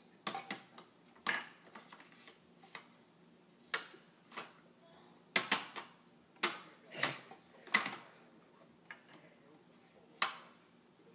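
Toy plastic cups and a sippy cup being picked up and set down on a small tray and a wooden table: irregular light clacks and knocks, several close together about halfway through.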